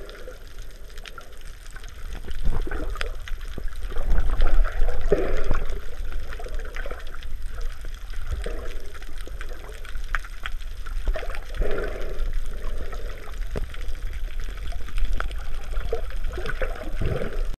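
Underwater water noise picked up by a submerged camera: sloshing and gurgling swells over a constant low rumble, with scattered small clicks.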